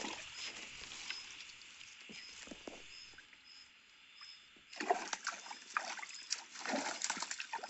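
Water splashing and pouring as a hand net scoops a catfish out of a shallow stream and lifts it clear, starting about five seconds in. Before that, only a faint high chirp repeats every half second or so.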